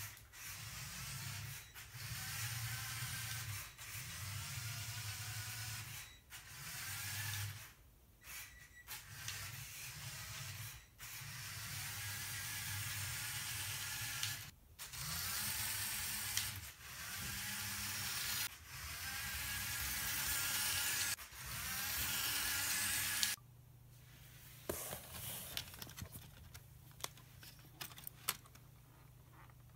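Lego Technic model car's electric drive motor and gear train whirring and rattling as it drives, in repeated bursts of a few seconds with the whine rising and falling in pitch. Near the end the drive stops, leaving a few light clicks and knocks.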